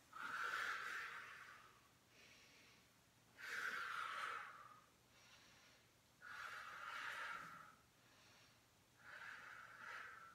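A woman breathing audibly with effort during a Pilates mat exercise: four long, hissy breaths, about three seconds apart.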